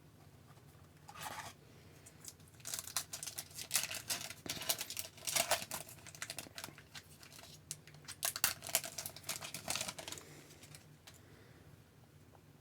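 A hockey card pack's foil wrapper being torn open and crinkled, in irregular bursts of crackling, busiest in the middle and dying away near the end.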